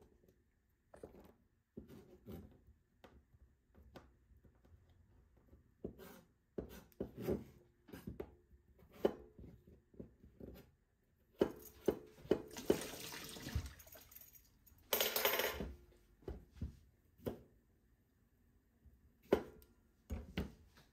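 Knife work on a plastic cutting board: irregular taps and knocks as peeled potato is cut and the slices are gathered and handled. A little past halfway there are a few seconds of louder rushing, watery noise.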